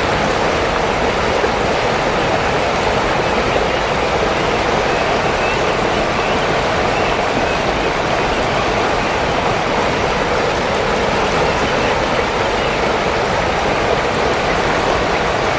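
Steady, loud rushing of flowing water, an unbroken even noise like a stream or weir running.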